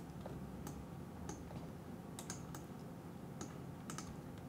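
Faint, scattered clicks of computer keys and a mouse being pressed at an irregular pace, about eight or nine over a few seconds.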